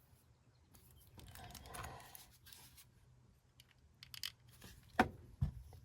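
Light handling noises and small metal clicks from a Schlage lock cylinder being worked by hand during a rekey, as new pins are loaded and the plug is fitted back. A soft rustle comes first, then a few light clicks, and a sharper click followed by a duller knock near the end.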